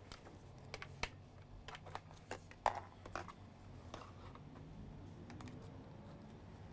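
Light clicks and taps from handling a plastic USB power meter and charging cable, scattered over the first three seconds or so, then only a faint low hum.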